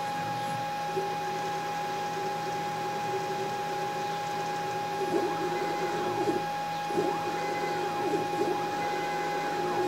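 Stepper motors of a homemade CNC router driving the gantry and Z axis, under computer control, on a first test run. A whine starts about a second in, and in the second half it gets louder with pitch sweeps up and down as the axes speed up and slow down. A steady high tone sits under it throughout.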